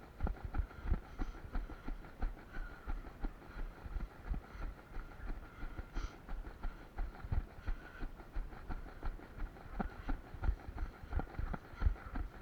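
Footsteps of a person running, a steady thud about three times a second.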